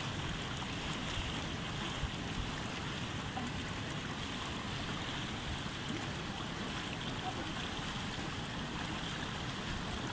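Fast-flowing mountain stream rushing steadily over rocks.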